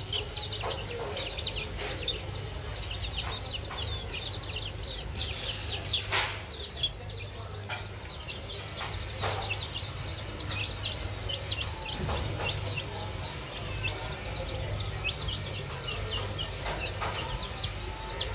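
A flock of baby chicks peeping without pause, many short, falling cheeps overlapping one another. A few sharp taps cut in, the loudest about six seconds in.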